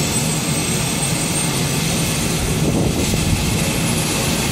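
Twin-engine turboprop airliner's engines running as it taxis: a high turbine whine over a steady low drone, the whine rising slowly in pitch.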